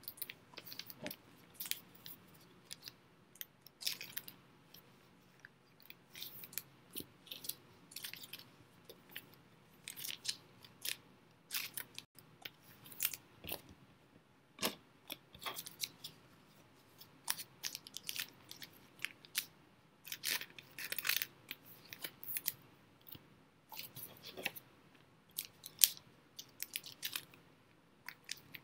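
Irregular light clicks and crinkles of small items being handled, coming in clusters with short pauses between.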